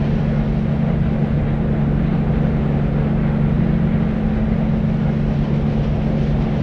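Steady deep white noise for soothing babies: an unchanging low, rumbling hiss, strongest in the low range and soft in the highs.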